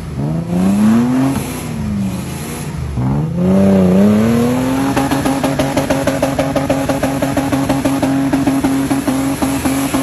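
Nissan Patrol's engine revving up and dropping back twice, then held at steady high revs from about halfway through, with a rapid clatter over the engine.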